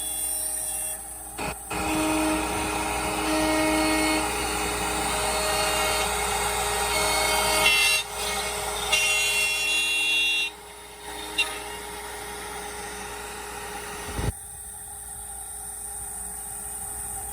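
Small CNC router cutting wood: a steady spindle whine under a cutting noise that rises and falls as the bit moves through the stock. The cutting noise drops quieter about ten seconds in.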